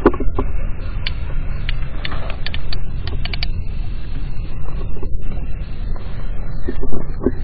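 Wind rumbling on the microphone, with irregular light clicks and creaks from handling a small spinning reel and ultralight rod while the popper lure is worked.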